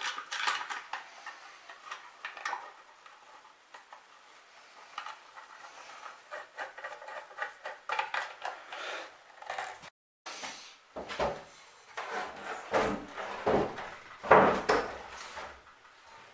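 Hands handling small metal parts, wires and tools: a run of light clicks, taps and rustles, then, after a sudden break about ten seconds in, a series of heavier knocks and clunks, the loudest near the end.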